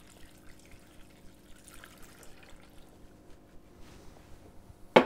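Water poured from a glass measuring cup into a pressure cooker pot full of chopped vegetables and beef, a faint trickle and drip. A single sharp knock near the end.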